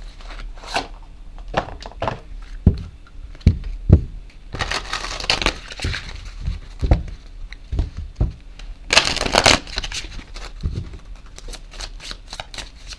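A deck of cards being shuffled and handled on a table: scattered taps and knocks, with two longer stretches of shuffling, one about four and a half seconds in and a shorter one near nine seconds.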